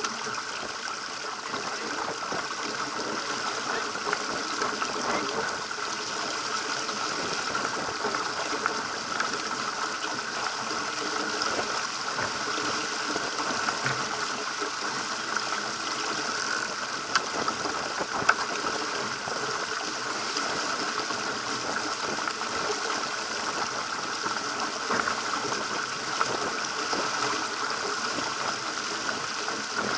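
Water rushing and splashing along the hull of a Pacer sailing dinghy under way in chop, a steady rush broken by a few sharp knocks, two of them close together just past the middle.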